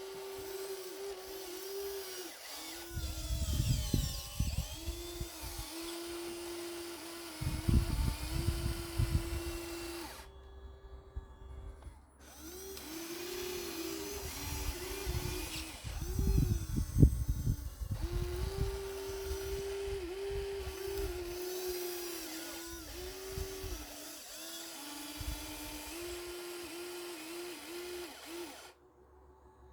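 Small electric motors of radio-controlled construction models whining steadily, the pitch dipping briefly again and again as they take load. Three spells of low, rough rumbling break in, and the sound drops out briefly near the middle and again near the end.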